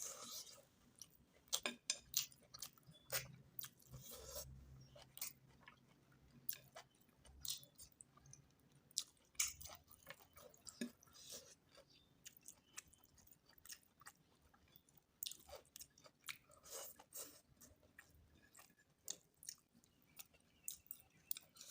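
Close-up eating sounds: irregular wet chewing and lip smacks, with a few louder crunchy bites, while someone eats goat meat curry with potatoes.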